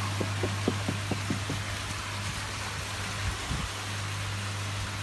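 Steady rush of running water with a low steady hum under it; a quick run of small water drips or plops comes in the first second and a half.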